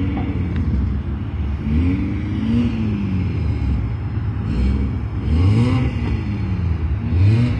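Car engine revving up and down in a string of short blips, about five rises and falls over a steady low rumble, from the red BMW 3 Series coupe.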